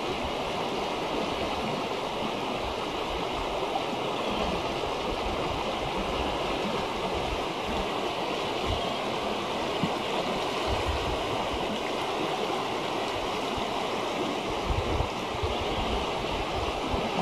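River swollen with spring flood water rushing steadily, a continuous even noise of fast-flowing water.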